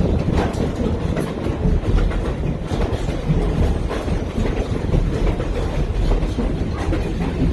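Excursion train cars rolling on the rails, heard from an open-air car: a steady low rumble of wheels on track with irregular sharp clicks from the wheels passing over rail joints.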